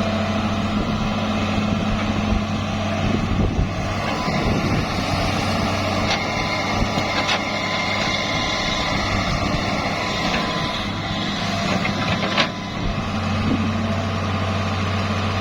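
Diesel engine of work machinery running steadily, with a few sharp knocks, about six, seven and twelve seconds in.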